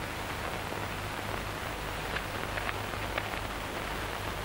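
Steady hiss and low hum of an old film soundtrack, with a few faint light ticks near the middle.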